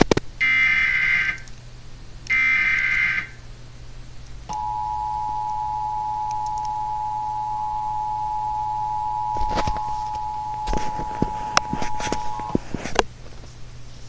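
Emergency Alert System Required Monthly Test: the last two of the three buzzy SAME header data bursts, about a second each, then after a short pause the EAS two-tone attention signal (853 and 960 Hz together) held steady for about eight seconds before cutting off. A few sharp clicks come near the end of the tone.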